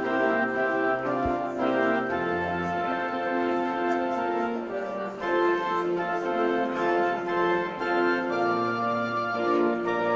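Background music of slow, sustained organ chords, the held notes changing every second or so.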